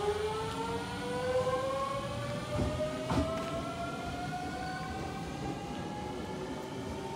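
383 series 'Shinano' limited express electric train pulling away: its traction motors give a whine that rises slowly and steadily in pitch as it accelerates. Two short knocks come about three seconds in.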